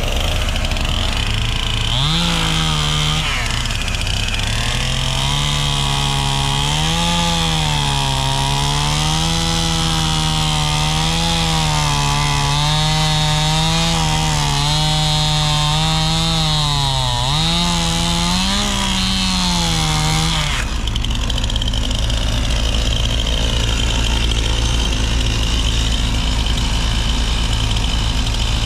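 Gas chainsaw cutting through a pine log, its engine note sagging and rising as the chain bites, then cutting off sharply about two-thirds of the way in. A mini excavator's diesel engine idles steadily underneath.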